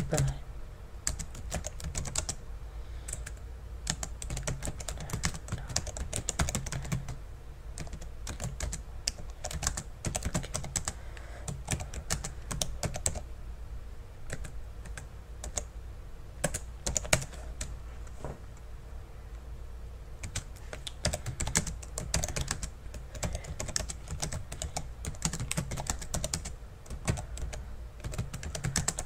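Typing on a computer keyboard: quick, irregular runs of key clicks with a few short pauses.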